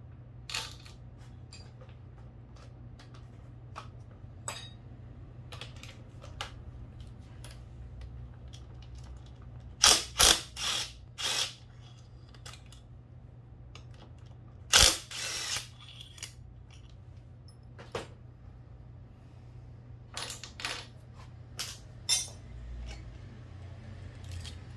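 A cordless power driver undoing the cylinder head bolts of a Honda Benly 110 engine, running in short bursts in two clusters about ten and fifteen seconds in. Between the bursts, metal tools and engine parts clink and knock, over a steady low hum.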